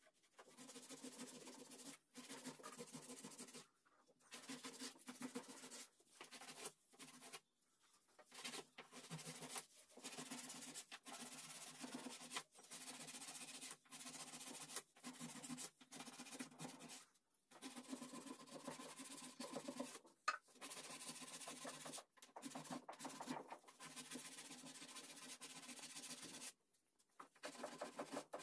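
Small brush scrubbing wood polish into the carved grooves of a teak panel: faint, rapid scratchy strokes in stretches of a second or more, broken by short gaps.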